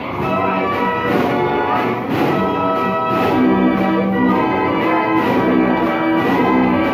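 Carousel band organ playing a tune with a steady beat.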